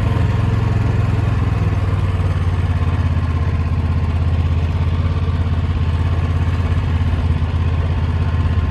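A small engine running steadily at an even speed, with a constant low hum and no change in pitch.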